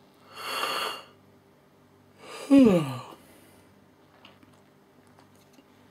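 A man yawning: a long breathy intake near the start, then a louder voiced exhale about two and a half seconds in whose pitch slides steadily down.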